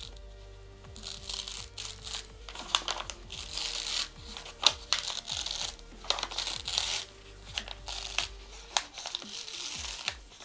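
Neon heat-transfer flex foil crinkling and crackling in irregular bursts as it is cold-peeled, rolled back off a cotton T-shirt, over background music.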